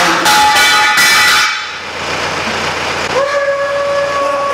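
A heavy steel gantry beam crashing down onto a welding machine: loud clattering and ringing metal that cuts off about a second and a half in. About three seconds in, a long, steady-pitched wail sets in, a dubbed-in meme scream.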